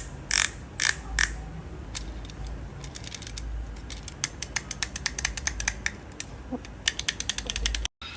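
A series of sharp clicks and ticks from handling an object. There are a few spaced loud clicks in the first second or so, scattered ticks after that, and a fast run of about eight clicks a second near the end that cuts off suddenly.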